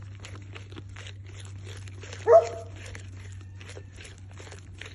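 Goat chewing holm oak leaves close up, a steady run of crunching bites about three a second. About two seconds in comes a single short, loud animal call.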